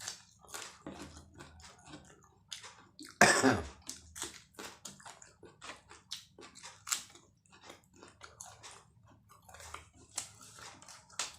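Close-miked chewing of egg martabak: many short wet smacks and clicks of the mouth. There is one louder, longer burst about three seconds in.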